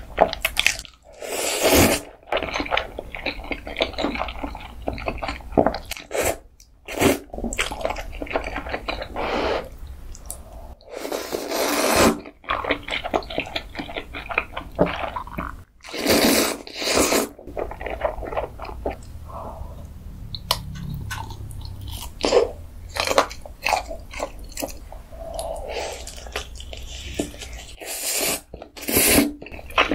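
Close-miked eating of instant noodles: several long, loud noodle slurps, with wet chewing and mouth smacks between them.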